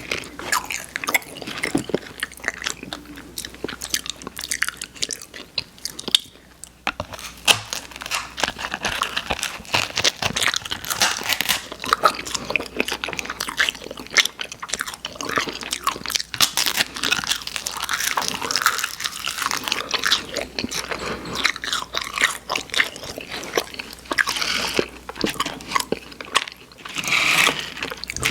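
Close-miked biting and crunchy chewing of edible novelty candy shaped like pens and paper, a dense run of irregular crunches with a short pause about six seconds in.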